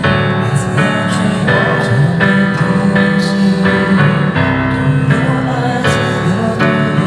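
Piano-style keyboard music played steadily, chords struck one after another.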